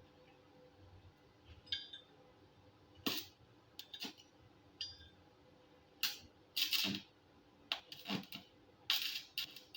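Irregular clinks, knocks and short scrapes of steel pieces being handled and set down on metal, with the busiest stretch in the second half.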